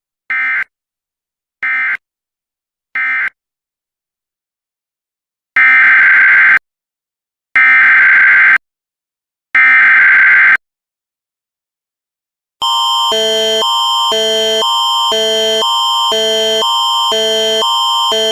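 Emergency alert SAME data bursts: three short end-of-message bursts of warbling data tones, then after a pause three header bursts of about a second each. About twelve and a half seconds in, an alert attention signal begins and runs on, a steady high tone over lower tones that alternate every half second, in the pattern of the Canadian Alerting Attention Signal.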